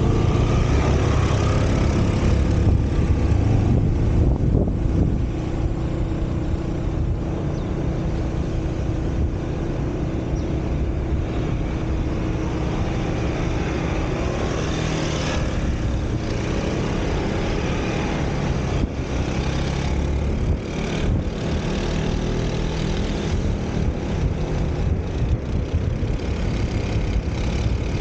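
WMoto RT3 250 cc maxi scooter riding at a steady cruising speed: a continuous engine drone mixed with wind rushing over the microphone.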